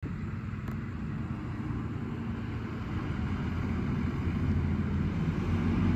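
Heavy diesel truck engine with a steady low drone, growing gradually louder as the dump truck and its trailer approach.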